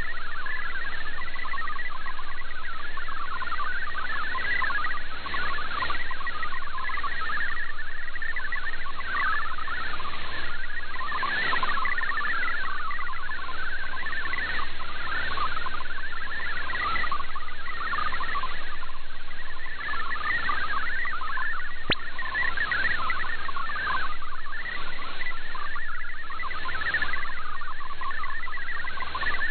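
MFSK64 digital data signal received on shortwave through an SDR in sideband mode: a dense warble of rapidly hopping tones between about 1 and 2 kHz, over receiver hiss that swells and fades.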